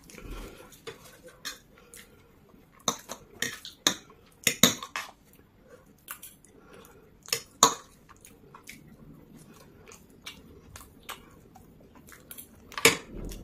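A metal fork clicking and scraping against a serving tray while forking up instant noodles, with chewing between. The loudest sharp clicks come in a cluster a few seconds in, once more past the middle, and again near the end.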